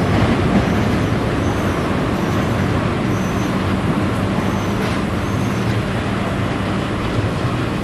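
Tait electric train pulling slowly away along the track: a steady rumble of its motors and wheels, with a low steady hum.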